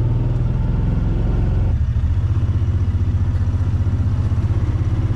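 Utility vehicle engine idling with a steady low pulsing note, which shifts slightly a little under two seconds in.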